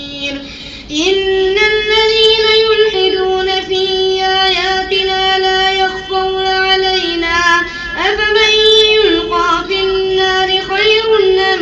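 A man chanting Quran recitation in melodic tajweed style, one high voice drawing out long held notes that step up and down in pitch, with short breaths between phrases.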